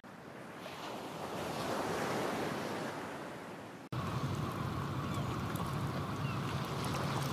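Sea waves washing: a swell of surf noise that builds and then eases off. About four seconds in it cuts to a second steady wash of water with a low hum underneath.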